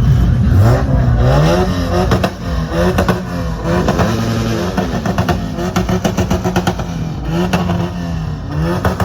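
A car engine being revved repeatedly, its pitch climbing and dropping about once a second, with sharp pops and crackles from the exhaust between the revs.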